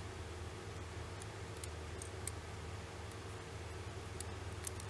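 Scattered small sharp clicks and ticks of metal tweezers working at a flex-cable connector on a Canon PowerShot SX730 HS lens unit, a few in the middle and a few more near the end, over a steady low hum.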